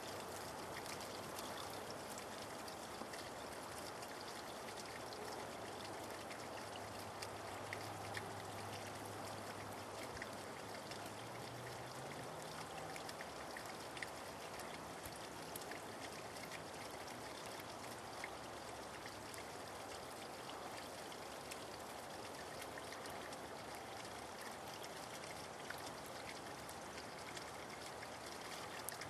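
Heavy wet snow falling and landing, a steady hiss scattered with small ticks of flakes and drops striking surfaces. A faint low hum rises in pitch about halfway through.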